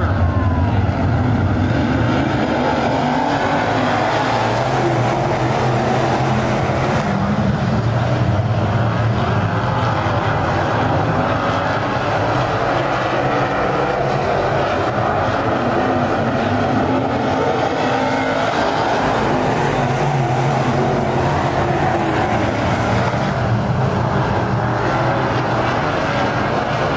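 A field of IMCA Modified dirt-track race cars with V8 engines running at racing speed, the engines of several cars overlapping. The sound swells twice, about four seconds in and again around seventeen to twenty-three seconds in.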